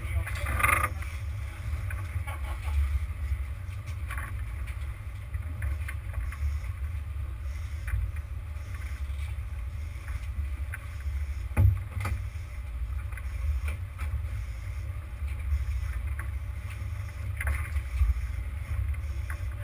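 Steady low rumble of a sportfishing boat's engine running, with a single sharp knock a little past the middle.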